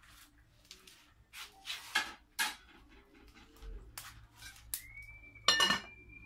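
Cookware and firewood being handled at a wood-fired stove: a run of light clinks and knocks, with a louder clank about five and a half seconds in. A thin steady whistle starts about five seconds in.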